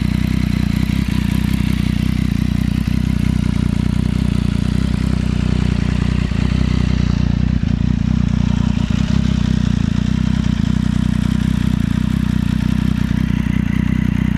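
Triumph Street Triple 675 inline-three engine running steadily with no revving, under a mechanical clatter and whir: the weird noise that the owner fears is a damaged counter balance shaft.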